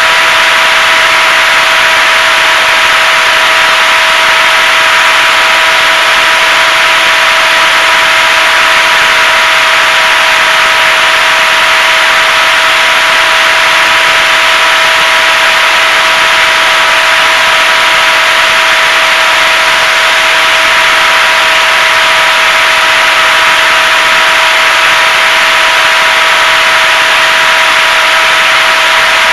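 HobbyZone Super Cub's electric motor and propeller running at a steady cruise throttle, heard from a camera on the airframe. A constant whine of several steady tones sits over a loud rush of air and propeller.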